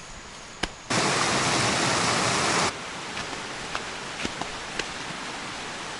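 Rushing water of a small waterfall: a steady hiss, loud for about two seconds with a sudden start and stop about a second in, then softer and steady, with a few light clicks over it.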